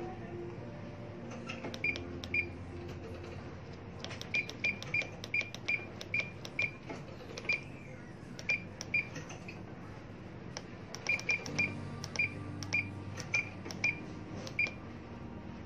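Furuno GP-32 GPS navigator's key beeps: about twenty short high beeps, some single and some in quick runs, as the arrow keys are pressed to enter a waypoint name. A low steady hum runs underneath.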